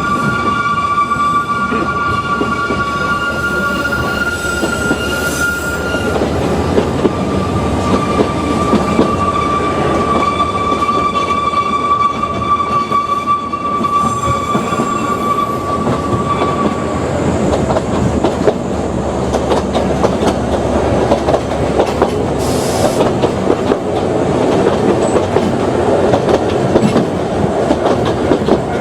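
Ōigawa Railway Ikawa Line train running on the track, with a dense rumble and rattle. Its wheels squeal in steady high tones for the first half or so, and the squeal then dies away.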